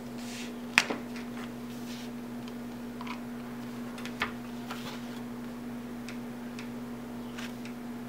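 Sparse light clicks and taps as a hot glue gun and cardstock pieces are handled and pressed together on a table, the sharpest click about a second in and another about halfway through, over a steady low hum.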